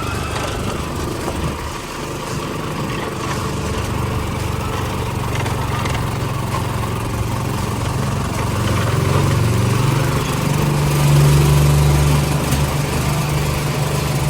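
Small gasoline engine running steadily, getting louder and rising a little in pitch about nine to twelve seconds in as it speeds up.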